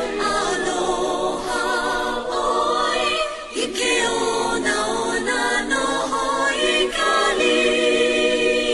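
Background music of a choir: many voices singing together.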